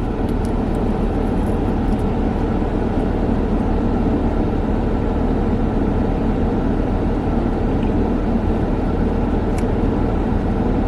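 Steady hum and hiss of a running car heard from inside its cabin, with a few faint clicks near the start and one sharp click near the end.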